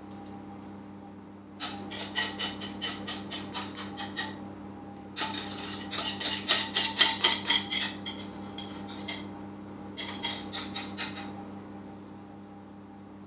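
A metal utensil clinking rapidly against a bowl of custard, in three bursts of a few seconds each at about five strikes a second.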